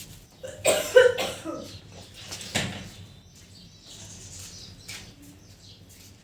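Cage birds calling and moving about, with a short burst of louder sounds about a second in.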